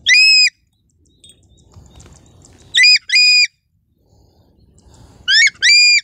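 An eagle close to the microphone giving loud, high whistled screams. There is one call at the start, a quick pair about three seconds in, and another pair near the end.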